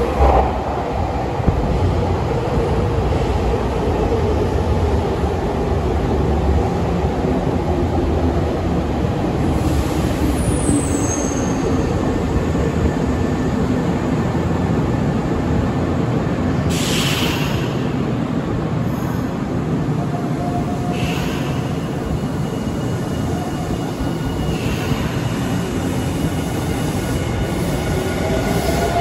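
Electric trains running past each other at a station: the steady rumble of wheels on rails from a Nankai stainless commuter train and the Nankai Rapi:t β limited express. Thin high squealing tones come in during the second half, and near the end a motor whine rises in pitch as a train picks up speed.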